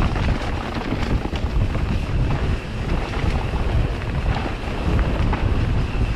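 Wind buffeting the camera microphone during a mountain-bike descent, a steady low rumble with scattered clicks and knocks from the bike over the trail.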